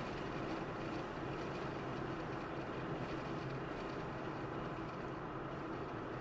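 Steady road and engine noise from a car cruising on a highway, an even rumble with a faint hum and no change in pitch.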